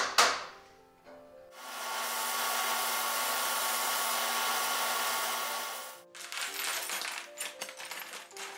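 Sandblast cabinet blast gun hissing steadily for about four seconds while blasting rust off old iron buggy hardware, then cutting off sharply. Loose metal parts then clink and knock as they are handled.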